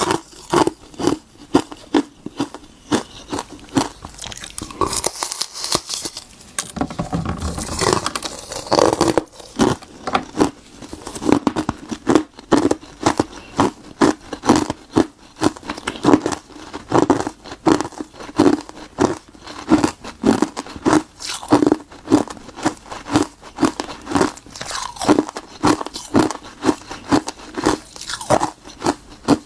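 Close-miked biting and crunching of frozen tartary buckwheat tea ice. A denser burst of cracking about five to nine seconds in, then a steady chewing rhythm of sharp crunches.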